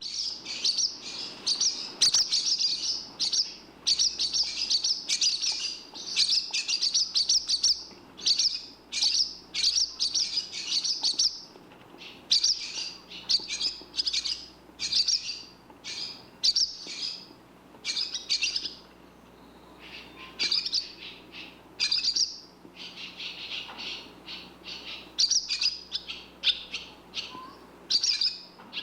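Swallows calling: a busy twittering of short, high chirps in quick runs, broken by brief pauses.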